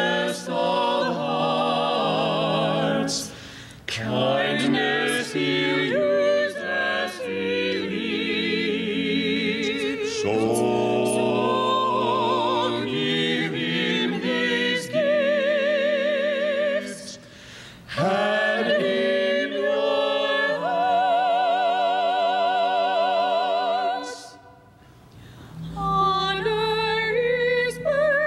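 Mixed vocal quartet, two women and two men, singing a slow anthem in harmony with vibrato in the held notes. The voices drop out briefly near the end and then come back in.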